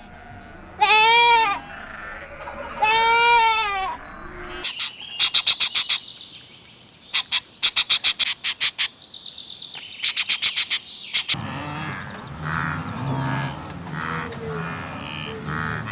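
Animal sounds: two long, wavering, bleat-like calls in the first four seconds, then after a sudden change, trains of rapid high-pitched clicks in several quick runs. Near the end, a lower, busier mix of animal noise takes over.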